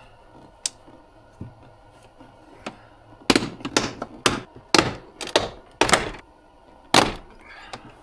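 Snap-fastener clips of a Tesla Model S front door trim panel popping out of the door as the panel is pulled off by hand: a few light clicks, then a run of sharp snaps from about three seconds in, the last one about seven seconds in.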